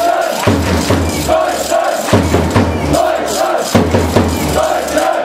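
Loud rhythmic chanting over a drum, with a deep drum hit and a repeated sung phrase about every second and a half.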